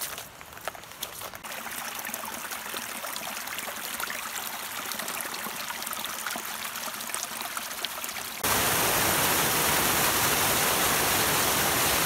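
Trout stream flowing, a steady rush of water. There are a few light clicks near the start, and about eight seconds in the water sound jumps abruptly to a louder, fuller rush.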